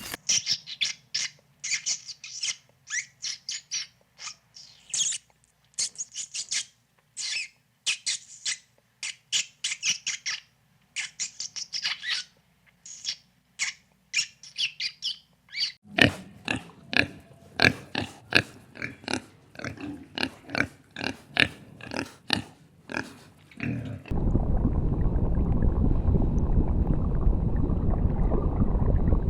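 Short, high-pitched animal squeals repeated in quick runs; about two thirds of the way in they give way to a faster string of sharp, clicky calls. Near the end a steady rushing noise takes over.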